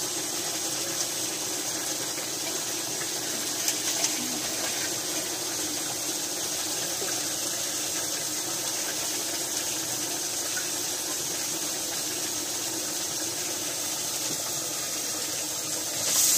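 Steady hiss of a kadhai of oil and masala cooking over a wood fire on a clay chulha, with a few small clicks of fish being handled in a steel plate. Near the end it suddenly gets louder as small fish go into the hot kadhai.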